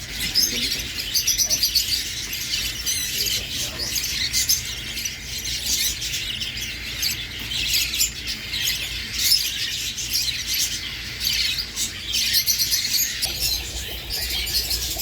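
Many small birds chirping at once, a dense overlapping chatter of short high calls that goes on without a break.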